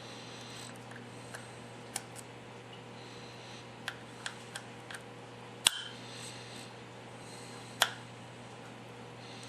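Small sharp clicks and taps of a screwdriver and tiny screws against an iPhone 5's metal housing and the work surface during screw removal: scattered single clicks, the loudest two a little past halfway and near the end, over a low steady hum.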